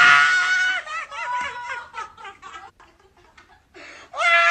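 Young men laughing hard, in high-pitched bursts that die away in the middle and break out again loudly near the end.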